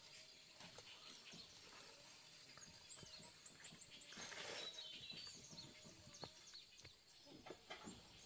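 Faint high-pitched bird chirping over quiet rustling, with a quick run of short chirps about three seconds in.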